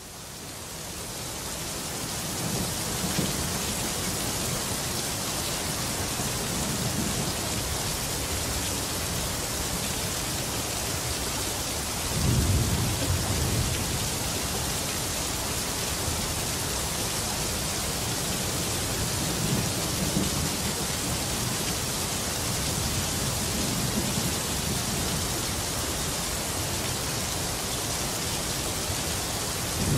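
Steady rain hissing, fading in over the first couple of seconds, with low rumbles of thunder rolling in several times; the loudest rumble comes about twelve seconds in.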